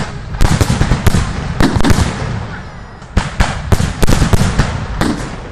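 Aerial firework shells bursting in quick succession: a bang at the start, a rapid run of bangs and cracks for about two seconds, a short lull, then another cluster of bangs from about three seconds in.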